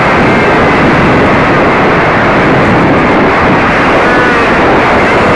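RC model plane in flight, heard from a camera mounted on it: loud, steady wind rush over the microphone with the faint, slightly wavering whine of the plane's motor.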